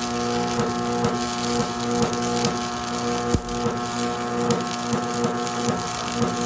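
Heavy-equipment engine running steadily, with light knocks about twice a second and one sharper knock a little past halfway.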